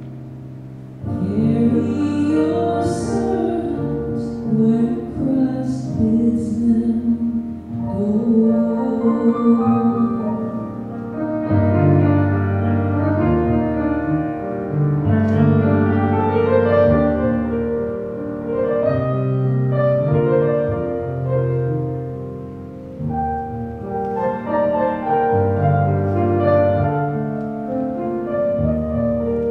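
Grand piano playing a slow piece of held chords and melody. A voice sings along in places, most clearly during the first ten seconds.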